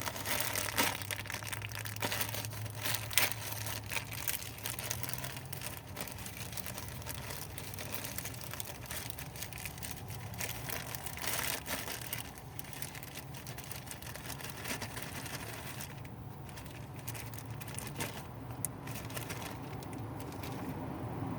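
Rustling and crinkling with scattered light clicks and scrapes as the old fuel-injector gasket is worked off and parts are handled by hand, over a steady low hum.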